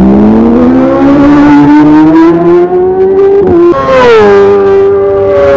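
Loud racing motorcycle engine at full throttle, its note climbing steadily for about three seconds. There is a short break, then the pitch drops as the bike passes and settles.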